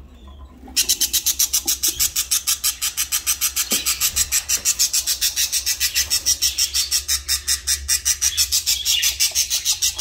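Budgerigar chicks begging in the nest box: a loud, high, rapid rhythmic cheeping of about six or seven calls a second, starting abruptly about a second in.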